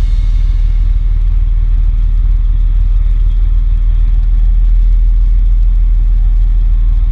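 Fire apparatus diesel engine running steadily, a loud, deep, even rumble.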